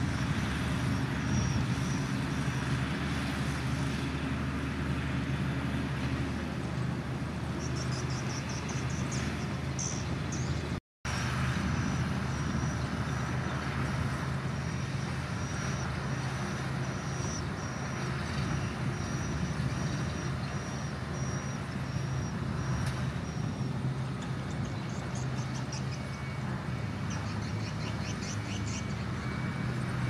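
Small Komatsu crawler bulldozer's diesel engine running steadily under load as it pushes dirt. The sound cuts out for a moment about eleven seconds in.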